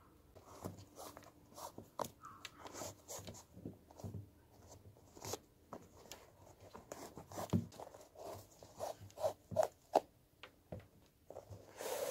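Shoelace being drawn out through the eyelets of a leather PUMA Turin sneaker: scattered soft rubbing and ticking, then a longer, louder zip as the lace slides out near the end.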